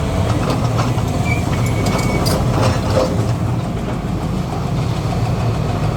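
Heavy construction machinery's diesel engine running steadily, with a few short metallic knocks in the first half.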